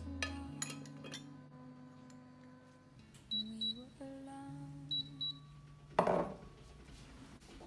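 Two pairs of short, high electronic beeps from a kitchen appliance, about a second and a half apart, over quiet background music. About six seconds in, a porcelain bowl is set down on the counter with a brief knock.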